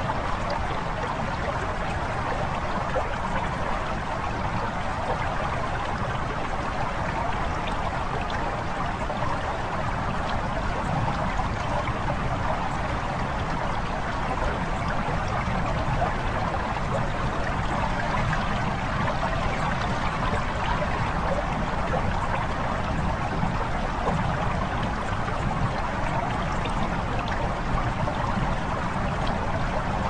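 Calm lapping water, an even, unbroken wash of sound that holds steady throughout.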